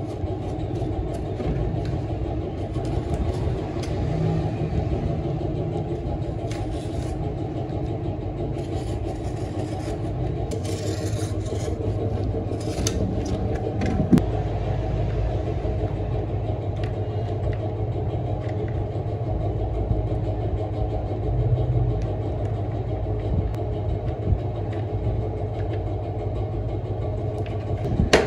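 A steady low rumble runs throughout. Over it come intermittent scraping and crackling as hardened fiberglass strands are cut and torn from the edge of a motorcycle helmet shell with a hand tool, with one sharp click about halfway through.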